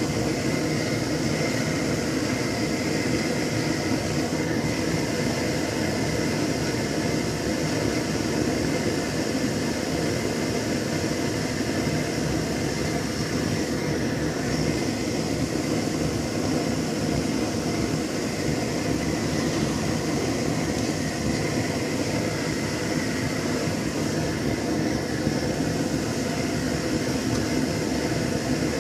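MTZ-82 tractor's four-cylinder diesel engine running steadily after a cold start in −7 °C frost.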